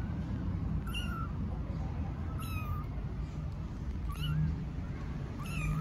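Newborn kittens mewing: four short, high-pitched mews about a second and a half apart, each bending in pitch, the calls of tiny kittens looking for their mother cat.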